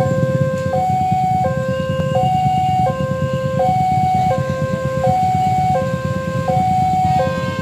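Railway level-crossing warning alarm sounding a two-tone electronic signal, switching between a low and a high pitch about every 0.7 seconds, warning that a train is approaching. A steady low rumble runs underneath.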